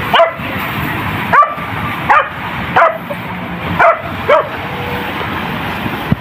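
Young hunting dog, a beagle cross, yelping about six times in quick, uneven succession, each yelp sliding down in pitch, over a steady hiss.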